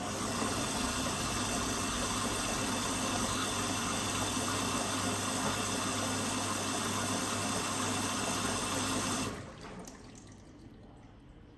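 Water rushing through a washing machine, either filling or draining, with a faint steady hum; it stops abruptly about nine seconds in.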